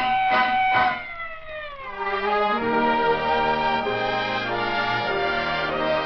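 Radio studio orchestra playing: a held chord with a few accents breaks off about a second in and slides down in pitch, quieter for a moment, then settles into sustained chords.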